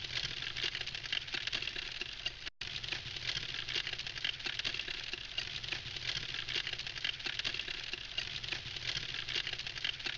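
Wood campfire crackling steadily, with dense small pops and snaps from the burning logs, and a momentary break in the sound about two and a half seconds in.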